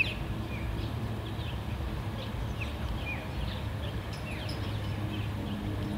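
Small birds chirping here and there, short scattered calls, over a steady low rumble.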